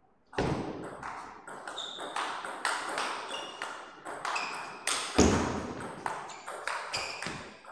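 Table tennis rally: the ball clicks sharply off the rackets and the table in quick alternation, about two to three hits a second, with a heavier thud a little past five seconds in.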